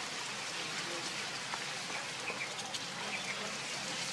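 Outdoor background noise: a steady hiss with scattered small clicks and a few short, faint chirps.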